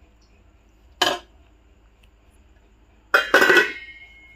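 Stainless-steel kitchenware clinking: one sharp clink about a second in, then a louder clatter of metal on metal about three seconds in, leaving a high ringing note that fades. The clatter is the serving spoon and steel lid going back onto the steel pan.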